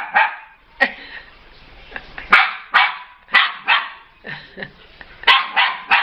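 Siberian husky puppy barking in play, about eight short barks in clusters with brief pauses between them.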